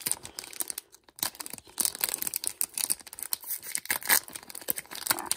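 Foil booster-pack wrapper being slowly peeled and torn open by hand: irregular crinkling and crackling, with a louder rip about four seconds in.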